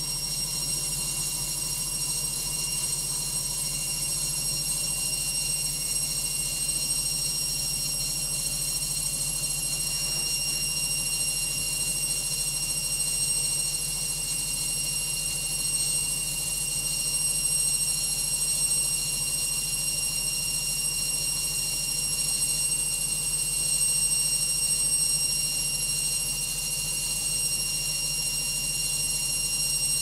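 Logik front-loading washing machine in its final spin, the drum turning at a steady speed: a steady high-pitched motor whine over a low hum.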